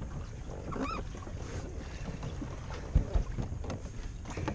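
Wind buffeting the microphone over open water from a kayak, with a brief distant shout about a second in and a sharp low thump about three seconds in.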